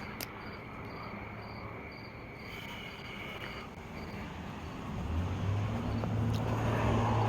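Faint, regular cricket chirping over background noise, joined about five seconds in by a steady low mechanical hum that grows louder.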